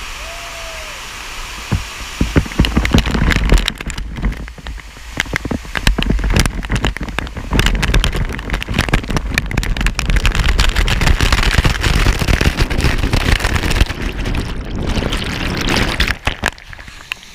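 Rushing, splashing waterfall water in a canyon chute, with a steady rush at first, then from about two seconds in many irregular knocks and heavy rumbling buffeting close to the microphone, easing near the end.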